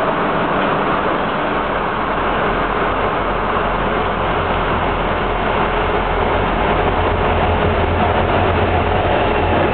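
EMD G26CU diesel locomotive, with a V16 two-stroke engine, approaching with a freight train. Its low engine drone sets in a few seconds in and grows stronger as it nears, over a steady rushing train noise.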